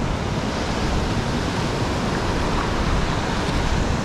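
Surf washing in over wet sand as a steady rushing hiss, with a low rumble of wind on the microphone.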